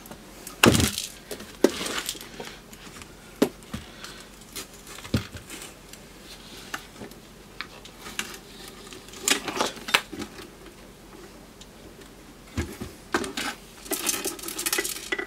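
Scattered clicks and knocks of an electrofusion welder's metal case and a hand tool as the case is worked loose and handled. Near the end comes a quick run of rattling clicks as the unit is tipped: a loose nut shifting inside the case.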